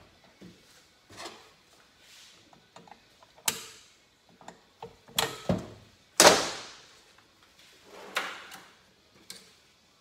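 Metal engine parts and hand tools clanking against the crankcase and workbench while a motorcycle gearbox is taken apart: a string of separate knocks and clinks. The loudest comes about six seconds in and rings on for about a second.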